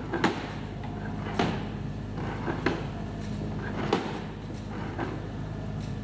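Hydraulic sheep scanning crate working under foot-pedal control: a steady hum from its power unit, with sharp metal clanks of the steel frame and panels about every second and a bit.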